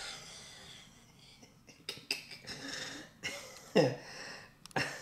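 A few faint sharp clicks about two seconds in, then a man's short cough-like vocal sound just before four seconds, falling in pitch.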